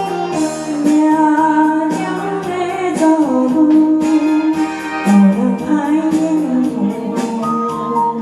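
A Taiwanese pop ballad's backing music, with a woman singing a sustained, wavering melody over it.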